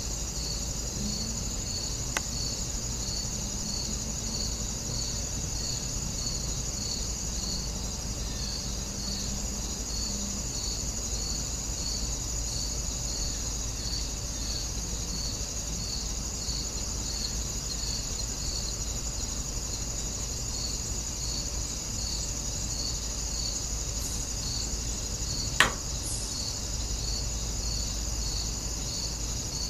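Steady insect chorus: a continuous high trill with an even chirp about twice a second. One sharp click near the end, and a fainter one about two seconds in.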